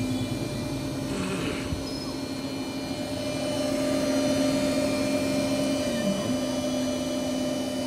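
Laser cutting machine running: a steady mechanical hum with held tones, whose low tone dips briefly in pitch about six seconds in.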